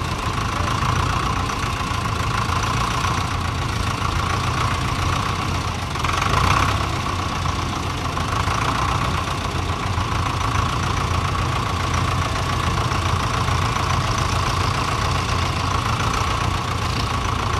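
Fordson Major tractor engine running steadily at low revs while the tractor is inched onto the balance point of a plank see-saw, with a brief louder swell about six and a half seconds in.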